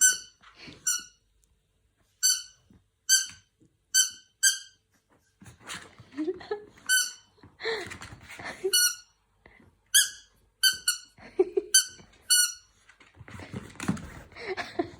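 A pet's rubber squeaky toy being squeezed over and over: about fourteen short, high squeaks at irregular intervals, with rustling and scuffling sounds between them.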